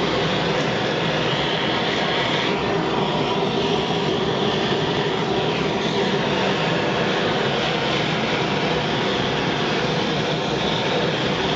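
Sievert propane torch with a 2943 nozzle, fed at 40 psi, burning steadily with a constant rushing noise as its flame heats a copper boiler for silver soldering.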